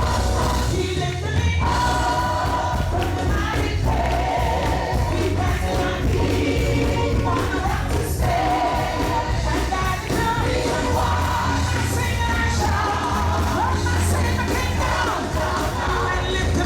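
Live gospel music: a band with a choir singing.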